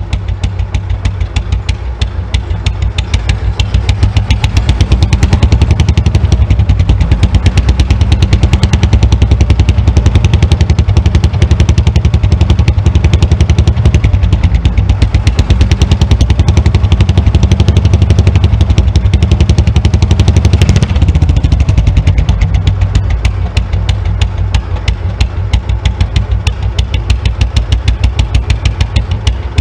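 Cub-style motorcycle's single-cylinder engine running through a short open exhaust pipe in quick, even pulses. It gets louder a few seconds in and eases back about two-thirds of the way through.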